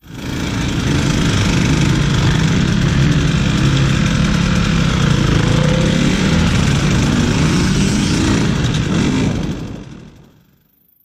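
2017 KTM 150 XC-W's single-cylinder two-stroke engine running steadily as the dirt bike is ridden. The sound fades in at the start and fades out over the last couple of seconds.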